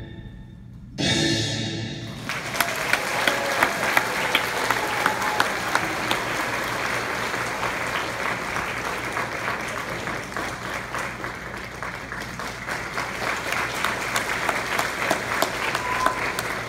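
Orchestral music ends on a final chord about a second in, then the audience applauds, many hands clapping steadily to the end.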